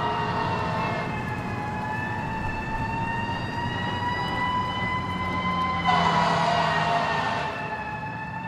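A siren wailing, its pitch slowly rising over several seconds and then falling, over a steady hiss. About six seconds in, a burst of rushing noise comes in and fades a second or so later.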